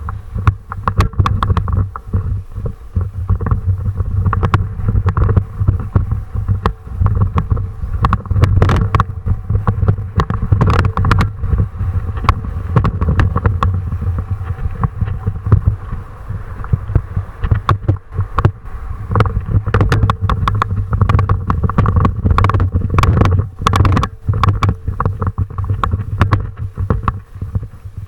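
Wind buffeting the microphone with a steady low rumble, broken all through by many sharp knocks and rattles.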